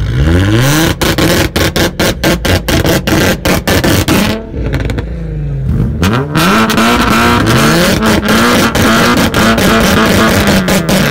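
Honda Civic Si's four-cylinder engine revved onto a two-step launch limiter, holding on the limit with a rapid string of pops and bangs, several a second, for about three seconds. It drops back briefly, then is revved up again and held on the limiter, crackling.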